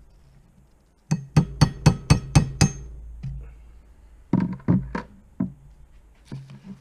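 Hammer tapping a hex key used as a punch to drive an old barrel pin out of a wooden musket stock: a quick run of about seven sharp taps, about four a second, then a group of about five and a couple more near the end.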